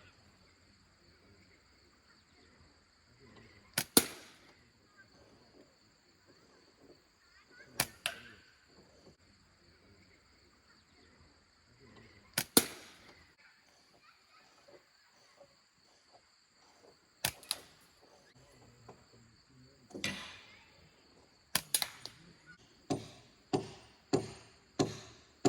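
Slingshot shots with steel BBs at a tin can: each is a sharp snap of the release, often followed closely by the hit on the can, coming about every four seconds. Near the end a quicker run of knocks follows, about one every half second to second.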